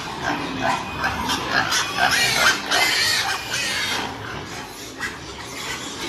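Sows in metal crates calling: many short squeals and grunts overlapping, loudest about two to three seconds in, then easing off.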